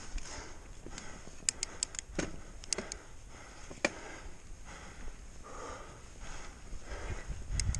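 Bird Aeris mountain bike riding down a dirt trail: tyres running over the ground, with irregular sharp clicks and rattles from the bike and a low rumble building near the end.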